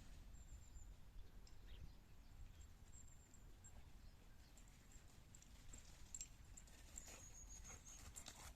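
Near silence: faint outdoor ambience with a low rumble and a few soft clicks.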